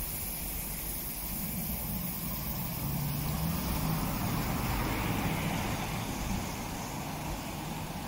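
Aston Martin DBX SUV's engine pulling away, a low rumble that swells from about three seconds in and eases off near the end as the car moves off.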